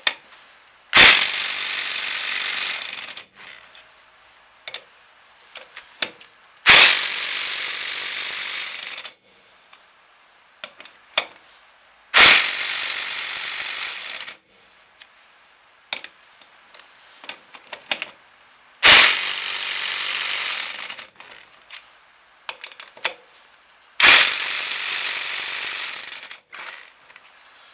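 Impact wrench hammering lug nuts down in five bursts of about two seconds each, a few seconds apart, with small clicks of the socket between them. The nuts are run on in a star pattern through a 100 ft-lb torque-limiting extension, which twists and flexes instead of passing on more torque.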